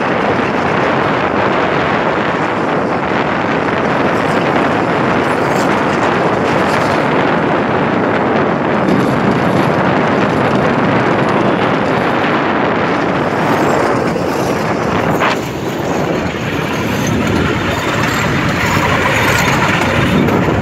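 Cambodian bamboo train (norry) running along the rails: a steady, loud rush of its small engine, wheels on the track and wind on the microphone, with a few clicks.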